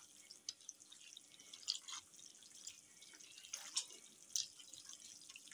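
Hands squeezing and kneading wet, oily marinated beef mince in a steel bowl: faint, irregular squelches and squishes.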